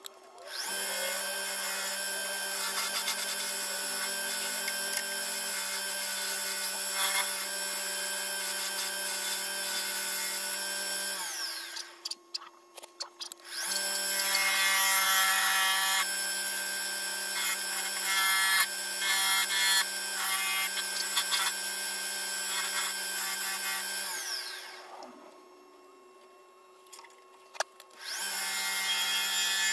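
Wood lathe spinning a cherry bowl blank while a bowl gouge cuts into it, a steady hum with the rough noise of the cut. The cutting sound stops twice for a few seconds, about twelve seconds in and again about twenty-five seconds in, then picks up again.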